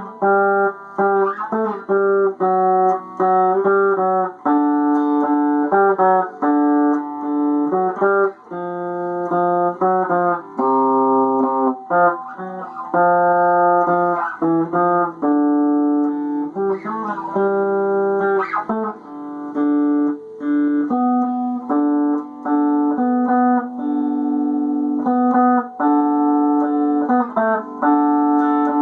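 Guitar playing a continuous run of held notes and chords, without singing.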